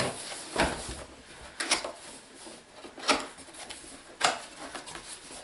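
A cardboard product box being handled and opened by hand: cardboard rubbing and scraping, with four sharp knocks and clicks as the box is turned and its seal picked at.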